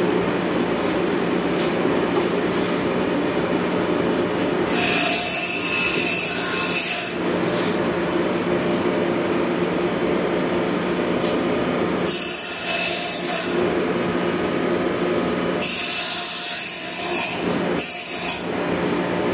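A steady machine drone runs throughout, with four bursts of high hissing on top of it, each lasting about one to two seconds: the first about five seconds in, the others near twelve, sixteen and eighteen seconds.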